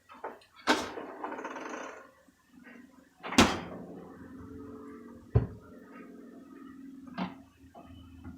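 Kitchen clatter: four sharp knocks spread a couple of seconds apart, with a faint steady hum between them.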